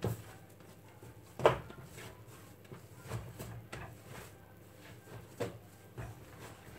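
Hands kneading risen yeast dough against a countertop: soft low thuds, with one sharp knock about a second and a half in and a few lighter knocks later.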